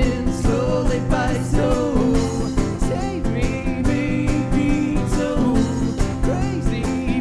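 Live performance of a country-pop song with guitar and a steady beat, in an instrumental passage between sung lines; a melodic line bends in pitch above the accompaniment.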